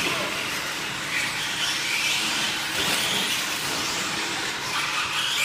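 Electric 4x4 short course RC trucks running on a dirt track: a high motor and gear whine that rises and falls as they accelerate and back off.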